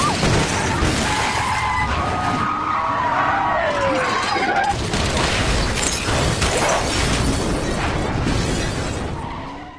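Film car-chase sound mix: tyres screeching as cars swerve, over engines and crash impacts. The mix fades out at the end.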